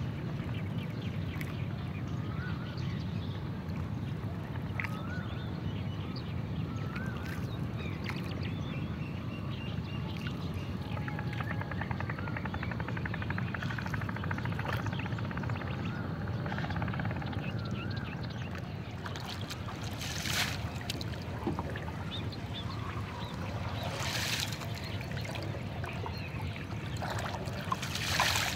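Birds calling in short chirps over a steady low rumble, then the rower's single wooden oar splashing into the lake about every four seconds near the end, the last stroke the loudest.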